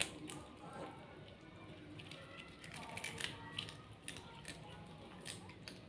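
Cats chewing fish: scattered small sharp crunching clicks, over faint background music and voices.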